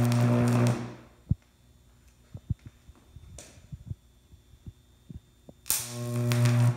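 22,000-volt arcs drawn from a pole transformer's bushing with a hot stick: a loud, deep mains buzz with a hiss. The first arc runs for about the first second, then cuts off. After that come a few faint snaps, and a second arc strikes near the end and grows louder until it breaks off.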